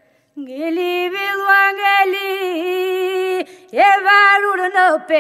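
Albanian Lab polyphonic folk singing, unaccompanied. After a brief pause, a voice holds one long note for about three seconds with a small dip in pitch, then starts a shorter phrase.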